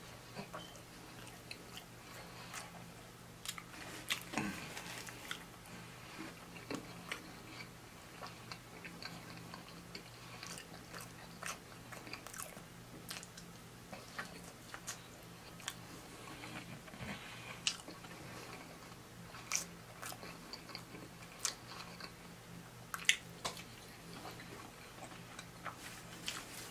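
Close-miked chewing and biting of a person eating pizza: wet mouth smacks and small crunchy clicks scattered through, over a faint steady low hum.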